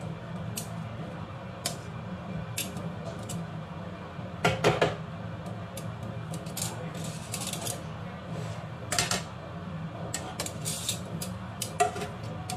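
Metal kitchen tongs and a glass pan lid clinking and knocking against a frying pan and the stove: scattered sharp clicks, with louder clatters about four and a half and nine seconds in, over a steady low hum.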